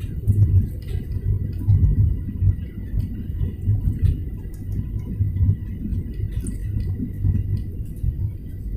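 Steady low rumble of engines and rushing air heard inside a jet airliner's cabin on final approach to landing.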